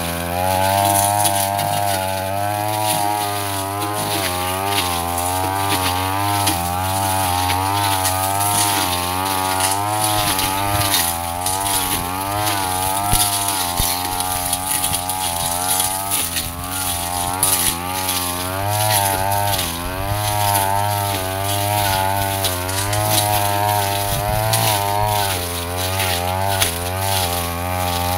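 Backpack brush cutter engine running hard while its blade cuts through swamp ferns and brush. The engine speed rises and falls in repeated waves as the blade is swung into the growth.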